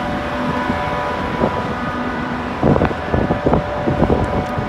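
A steady machinery hum with several steady tones from the cargo ship, then about two and a half seconds in, wind starts buffeting the microphone in gusts as the steel deck door opens to the outside.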